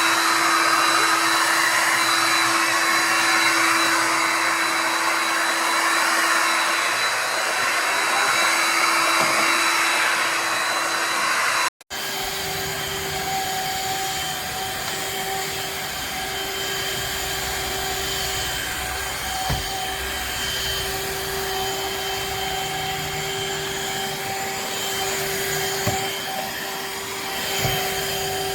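Shark HydroVac MessMaster cordless wet-dry vacuum mop running steadily: a motor hum with a high whine over a rushing airflow. It cuts out for an instant about twelve seconds in and comes back at a slightly higher pitch, with a few faint knocks later.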